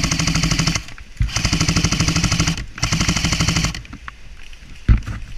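Airsoft rifle firing on full auto in three long bursts of rapid, even clicks, laying down suppressive fire. The first burst is already running and stops just under a second in, the second ends about two and a half seconds in, and the third ends near four seconds. A few scattered knocks follow near the end.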